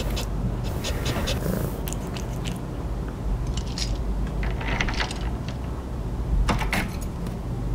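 A cat lapping spilled liquid off a hard floor: small wet clicks of the tongue coming in short irregular runs, over a low steady hum.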